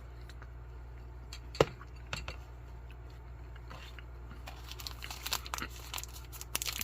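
Food-ration packaging being handled and crinkled, with one sharp knock about a second and a half in and a growing flurry of small crinkles and clicks in the second half, over a low steady hum.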